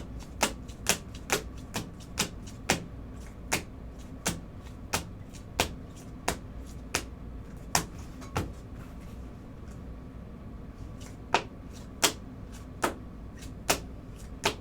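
Trading cards being laid down one after another during a recap of pulled cards: a string of sharp clicks, about one or two a second, with a pause of about three seconds in the middle.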